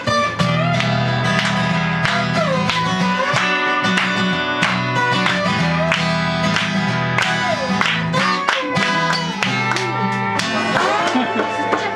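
Two acoustic guitars playing an instrumental passage without singing. One strums chords while the other, laid flat and played lap-style with a slide, carries the melody in notes that glide up and down.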